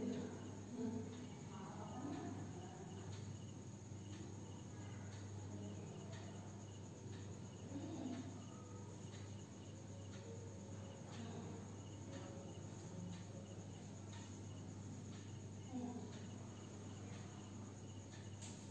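Faint cricket chirping, short high chirps repeating at a steady pace, over a steady electrical hum, with a few soft taps.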